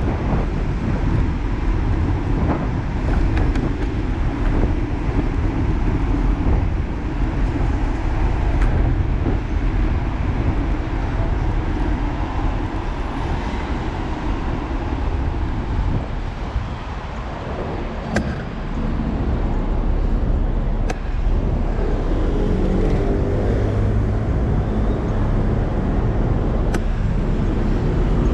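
Street traffic heard from a moving bicycle: a steady rumble of wind and road noise on a handlebar-mounted action camera, with cars and buses running past. A double-decker bus engine comes up near the end.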